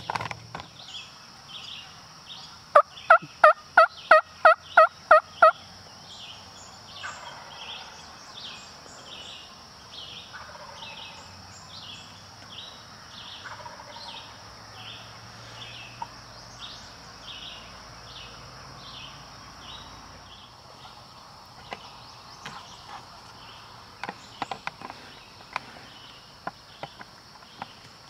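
A run of about ten loud, evenly spaced turkey yelps, a little under four a second, a few seconds in. They sound over a steady high insect hum with regular chirping, and near the end come a scatter of sharp clicks.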